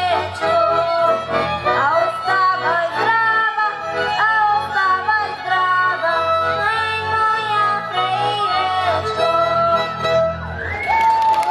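A boy singing a Rusyn folk song into a microphone over a small folk band's accompaniment, with a steady bass line under the melody. Near the end the song finishes on a held note and applause breaks out.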